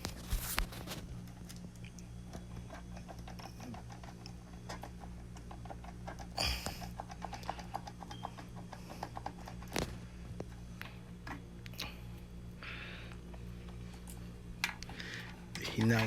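Light clicks and taps of hand tools working on a gas water heater, with a quick run of small ticks through the middle and a few sharper knocks, over a steady low hum.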